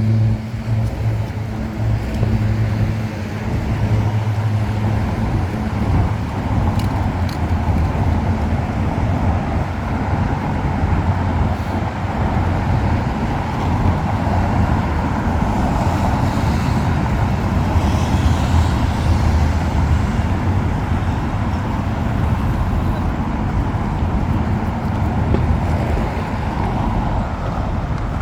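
Road traffic passing on a city street: a steady rumble of car engines and tyres. A low engine hum stands out for the first few seconds.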